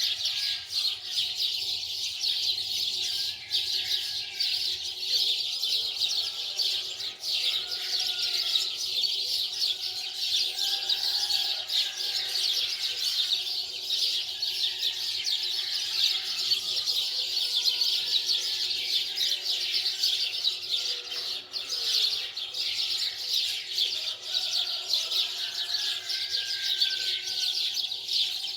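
Dense, continuous chirping of many small birds.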